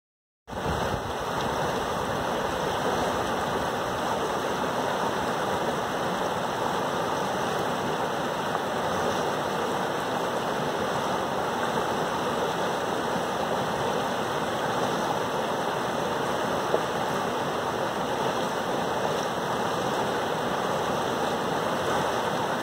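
River water rushing steadily over a shallow rapid, starting about half a second in after a moment of silence.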